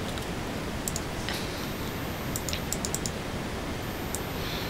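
Scattered sharp clicks of computer keys and mouse buttons, with a quick run of clicks near the middle, over a steady microphone hiss.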